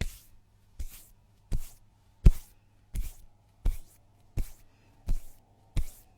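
Hands rubbing and pressing together in a steady rhythm: nine short strokes, about one every 0.7 seconds. Each stroke is a brief hiss with a soft thump beneath it, and the loudest falls a little after two seconds in.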